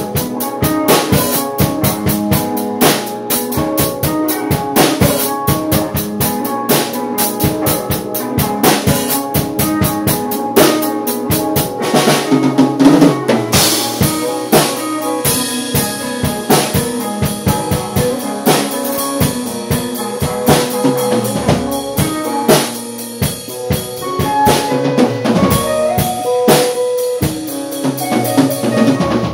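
Drum kit and guitar playing together: a driving beat of kick drum, snare and cymbals, several hits a second, with sustained guitar notes under it.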